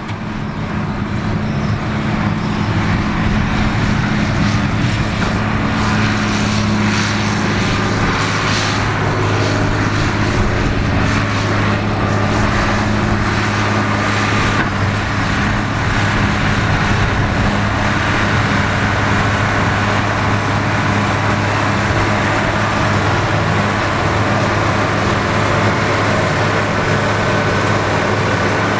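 John Deere 4960 tractor's six-cylinder diesel engine running steadily under load as it pulls and drives a Kuhn Knight 8124 Pro Twin Slinger manure spreader that is spreading manure. The sound fades up over the first two seconds and then holds level.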